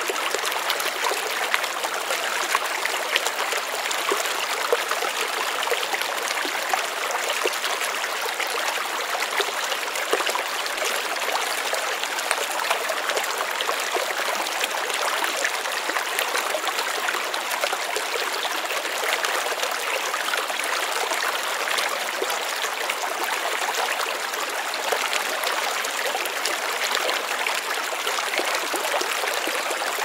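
Shallow stream flowing and babbling over rocks, a steady rush of water with small splashes and trickles.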